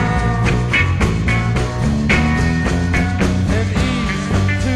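Live 1960s psychedelic rock band in an instrumental passage: electric lead guitar bending notes over bass guitar and drums.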